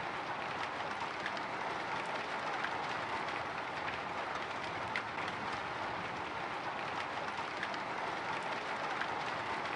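Light drizzle pattering on a window pane: a steady hiss of rain with small scattered drop ticks.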